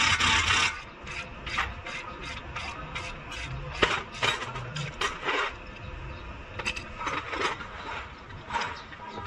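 Ratchet wrench clicking in irregular bursts as a bolt on a car's front suspension is turned by hand. A loud rushing noise lasts for the first moment before the clicking.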